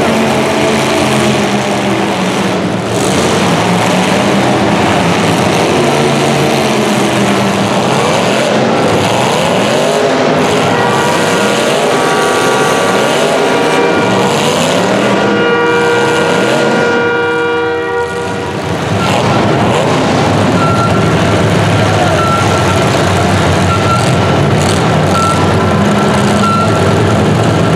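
Several vehicle engines running hard at once, loud and continuous, their pitches rising and falling as they rev. Their pitch holds steady for a few seconds around the middle.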